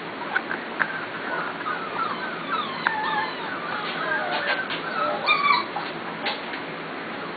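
Seven-week-old Pembroke Welsh corgi puppies whimpering: a run of short high whines that slide up and down in pitch, with a louder cluster about five seconds in.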